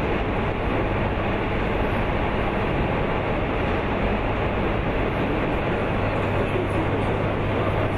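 Steady rushing background noise of a large industrial assembly hall with a constant low hum, unchanging throughout.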